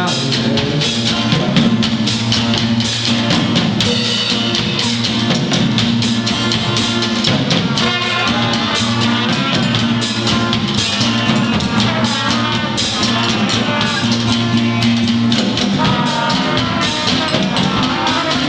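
Instrumental section of a song: a band with a drum kit playing a steady beat, without vocals.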